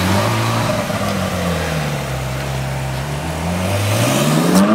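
Ferrari 458 Italia's V8 engine accelerating away, its revs rising and falling twice through the gears, then climbing steeply to a sharp crack near the end.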